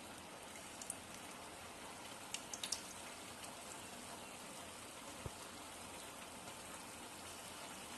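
Balls of soft maida dough frying in hot oil in a pan: a faint, steady sizzle with a few sharp crackles. A soft knock a little after five seconds in.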